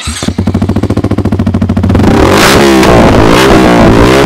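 Yamaha R15M's 155 cc single-cylinder engine firing up and running through a hand-held SC-Project-style slip-on silencer, being test-fitted for its sound. It starts abruptly with a pulsing idle, then from about halfway the throttle is blipped, with the revs rising and falling repeatedly.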